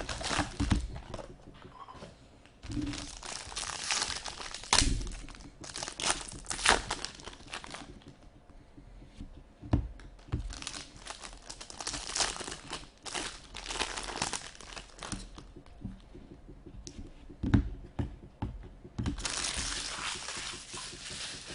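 Packaging of Upper Deck Engrained hockey card boxes and packs being torn open and crumpled: stretches of crinkling and ripping wrapper material, with a few sharp clicks from handling.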